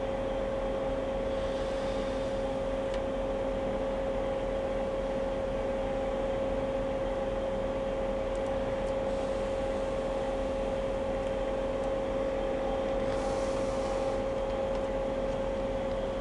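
Steady hum with one constant mid-pitched tone over a low even noise, unchanging throughout.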